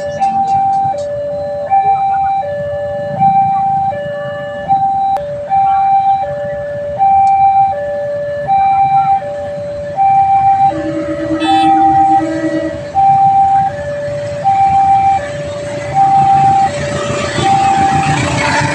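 Railway level-crossing warning siren sounding a two-tone alarm that switches back and forth between a higher and a lower tone, each held a little under a second. A rising rush of noise builds under it near the end.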